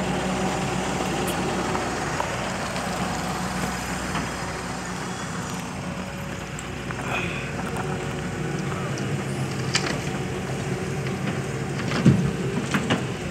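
Hyundai 220 crawler excavator's diesel engine running steadily under digging load. Near the end, a cluster of loud thumps as a bucketful of soil and stones drops into the steel body of a dump truck.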